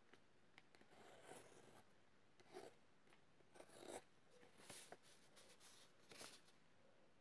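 Faint pencil scratching on paper as circles are traced around a metal jar lid, in several short strokes about a second apart, with light rustles of paper between them.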